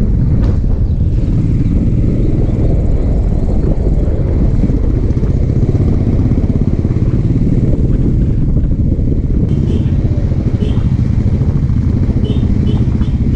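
Royal Enfield motorcycle running at riding speed, its engine mixed with a steady low rush of wind and road noise. Near the end comes a run of short, high, repeated beeps.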